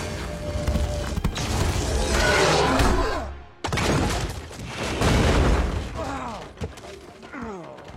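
Film action sound effects: a dense rushing blast as golden energy beams fire, a brief drop-out, then a sudden heavy crash about three and a half seconds in, with several falling sweeps near the end.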